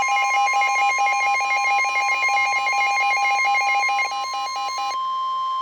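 Emergency alert attention signal for a severe thunderstorm warning: a steady, high single tone held under a fast, evenly pulsing warble that alternates between two pitches like a ringer. The warble stops about five seconds in while the steady tone carries on.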